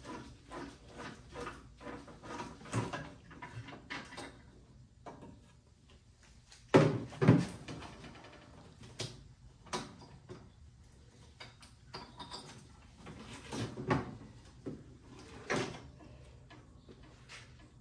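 Socket ratchet clicking in a run of short strokes for about the first four seconds as a spark plug is worked loose from a snowblower engine, then scattered knocks and clunks of tools and parts being handled, the loudest a pair of thumps about seven seconds in.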